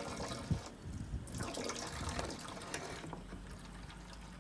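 Water from a garden hose running into a plastic caravan waste water container through its filler opening, with a brief lull about a second in. The container is being topped up with water to dilute the bleach inside it.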